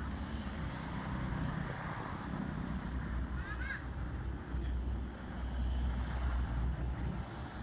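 Wind noise buffeting the microphone over a steady outdoor hiss, with a brief high chirping squeak about halfway through.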